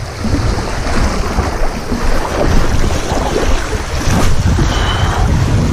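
Wind buffeting the microphone with a heavy rumble, over the wash of waves breaking on the shore.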